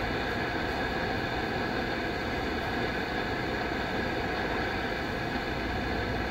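Steady shortwave static and hiss from the Eton Elite 750 receiver's speaker in upper-sideband mode as the tuning knob is turned down through empty frequencies between stations, with a few faint steady tones under the noise.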